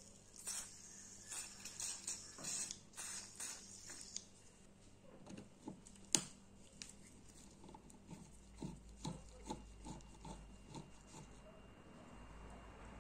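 Small screwdriver scraping and picking at the rust- and dirt-caked grip of an old Marksman dart pistol: a run of short rubbing strokes, then quieter scrapes and clicks, with one sharp click about six seconds in.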